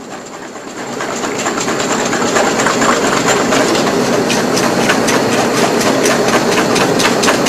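Wire whisk beating an egg-yolk mixture in a stainless steel bowl over a bain-marie: fast, even clicking and scraping of the wires against the metal bowl, getting louder about a second in. The yolks are being whipped until thick and pale.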